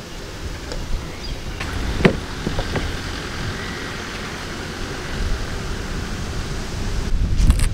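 Wind rumbling on the microphone, with a few light clicks and taps as wire is twisted around a metal pipe frame; the strongest tap comes about two seconds in.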